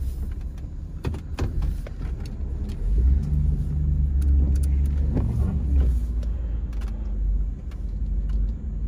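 Car driving slowly, heard from inside the cabin: a steady low engine and tyre rumble, with a few scattered clicks and knocks.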